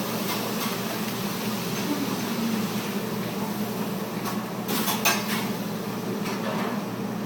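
Rubik's cube being turned quickly: rapid plastic clicking and clattering, sharpest in a few clicks about five seconds in, over a steady low hum.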